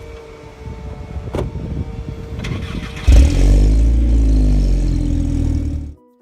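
Car engine, likely the 1965 Ford Galaxie's 352 V8, cranked by the starter for about three seconds before it catches. It revs up loudly, then its pitch falls as it settles, until it cuts off suddenly near the end.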